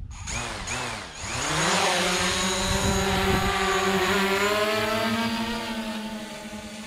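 DJI Mavic Pro quadcopter's propeller motors starting with quick pitch sweeps, then rising to a steady high whine as the drone lifts off. The whine grows loud and fades a little near the end as the drone climbs away.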